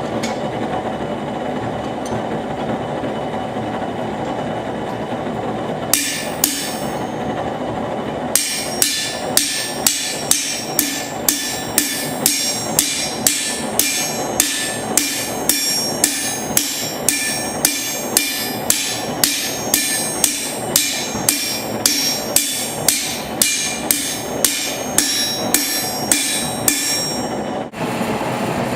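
Hammer blows on steel, ringing metallic strikes at about two a second, blacksmith forging work, after two first blows, over a steady rushing noise.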